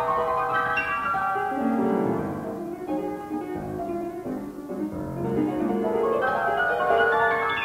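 Solo classical piano playing, with runs of notes falling and rising.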